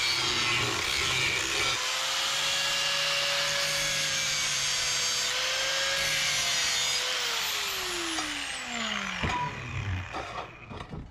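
Angle grinder with an abrasive disc grinding steel, running steadily; about seven seconds in it is switched off and its whine falls in pitch as the disc spins down, with a knock near the end as the grinder is set down on the metal bench.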